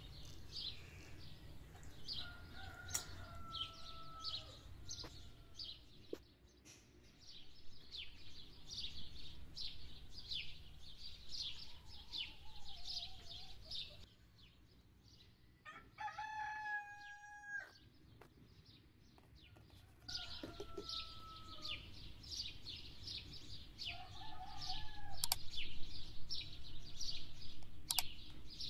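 Small birds chirping in quick, high repeated notes throughout, with a few lower drawn-out bird calls. A rooster crows once, for about a second and a half, around the middle.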